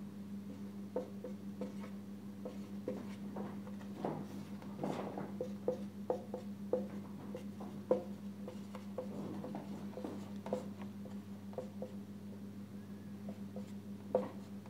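Marker pen writing on a whiteboard: a run of short scratches and taps as each stroke is drawn, over a steady low hum.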